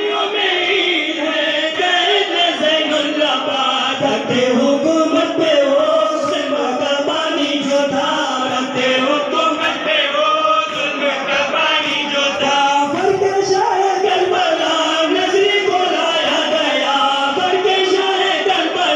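Men's voices chanting a nauha, a Shia mourning lament, in a slow, continuous melodic line.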